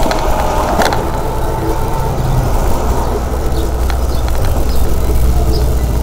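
Steady rumble of a bicycle rolling along a city street, with wind on the microphone, and a sharp knock about a second in.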